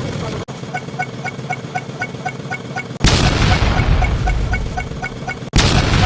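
Two sudden loud explosion booms, about three seconds and five and a half seconds in, each dying away over a couple of seconds. Under them runs a fast, even ticking of short pitched pips, about five a second.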